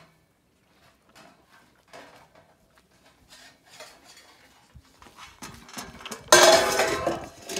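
A Jack Russell terrier licking and nudging a metal food bowl on the ground, with scattered light clinks and knocks, then a loud ringing metal clatter of the bowl lasting about a second, about six seconds in.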